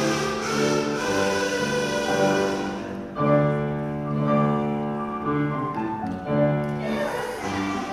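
Boys' choir singing held notes with piano accompaniment, a fuller chord coming in about three seconds in.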